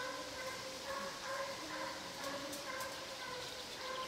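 Russian hounds giving voice on a trail: a steady run of short, repeated bays, about two to three a second.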